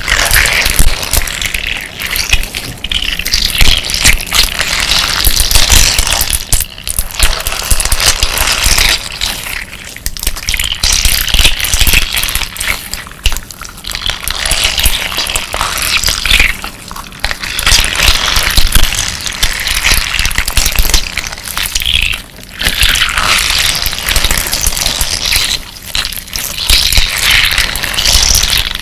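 Slime full of amber crystal-glass decorative stones being squeezed and kneaded by hand: wet squelching with the glass pieces grinding and clicking against each other in crunchy waves that swell and ease every few seconds.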